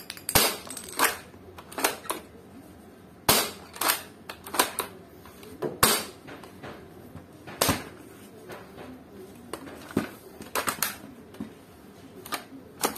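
Sharp plastic clicks and clacks of a toy bolt-action foam-dart blaster (an AWM L96 replica) being worked by hand, its bolt and magazine handled while it is jammed because the magazine is not seated right. The loudest snaps come about every two seconds, with smaller clicks between.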